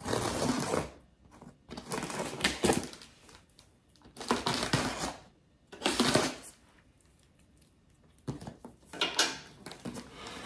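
A cardboard shipping box being opened by hand, its tape and flaps pulled and torn. The noise comes in about five rough bursts of a second or two each, with short pauses between.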